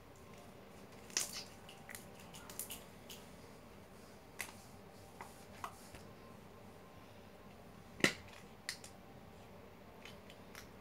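Scattered sharp clicks and pops from handling slime and its plastic containers by hand, the loudest about eight seconds in.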